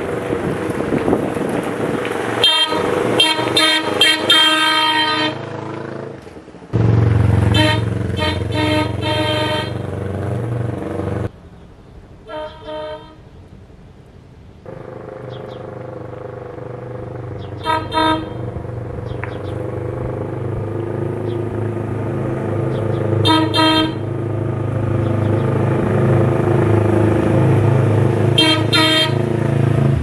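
Wolo Big Boy Max electric air horn on a Yamaha R3 sport bike sounding in a sound test: a string of quick blasts in the first few seconds, a longer blast around eight seconds in, then single short toots every five seconds or so. The motorcycle's engine runs underneath and grows louder as the bike rides up toward the end.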